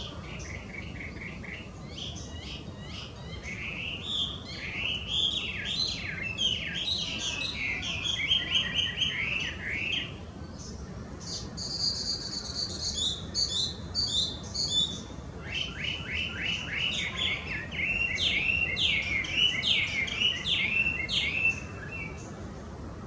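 Chinese hwamei singing its loud, varied song: rapid runs of whistled notes sliding up and down. There are three long phrases with short breaks between them, and the middle phrase is a higher run of repeated notes.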